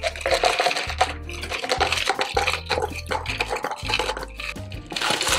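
Ice cubes poured from a plastic container clattering into a glass jar of frothed matcha, a scatter of quick clinks, over background music.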